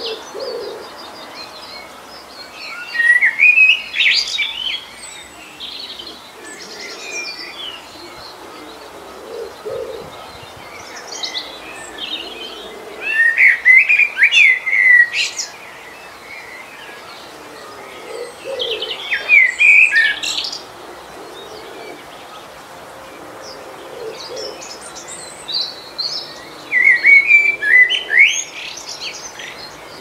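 Songbird singing: four loud phrases of quick chirping notes, several seconds apart, over a soft outdoor hiss.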